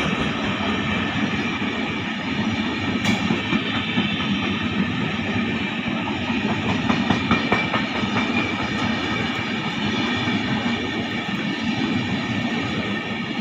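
Indian Railways LHB passenger coaches rolling past close by: a steady rumble of steel wheels on the rails, with a few sharp clicks over the rail joints.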